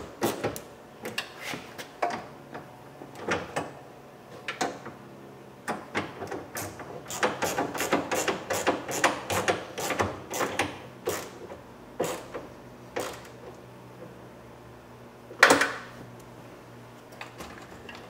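Hand ratchet clicking in short runs of quick clicks as two bolts inside a truck door are tightened, with one louder metal knock late on.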